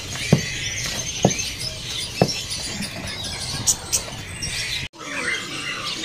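Many small caged songbirds chirping and squeaking together, with a few short sharp clicks in the first couple of seconds.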